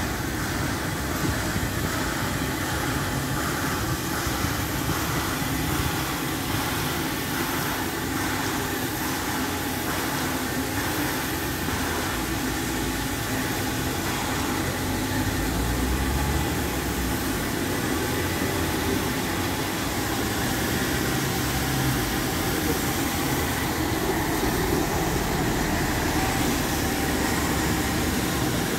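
Steady city street noise: a continuous traffic and engine rumble.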